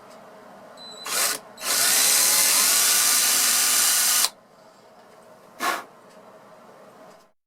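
Power drill boring a hole into a solid-body electric guitar's wood body through its brittle plastic-coated finish, chipping the finish: a brief burst, then about two and a half seconds of steady drilling, then another short burst.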